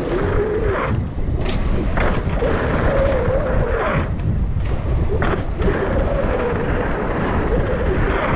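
Downhill mountain bike ridden fast over a dirt trail: heavy wind rush on the helmet or chest camera microphone with tyres rolling on hardpack, a wavering hum, and several sharp knocks and clatters from the bike over bumps.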